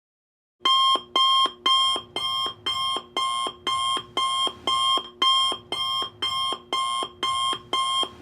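Electronic alarm tone going off as a countdown timer runs out: a short ringing pattern repeating about twice a second, starting about half a second in.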